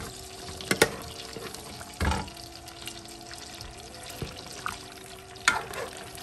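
A metal spoon stirring a simmering pot of stew, the thick sauce sloshing, with the spoon knocking against the pot a few times, loudest about a second in and near the end. Soft background music plays underneath.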